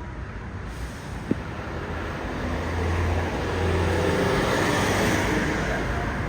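Engine rumble with a steady rushing noise, like passing traffic; a low hum comes in about two and a half seconds in and the sound swells, with a single short click about a second in.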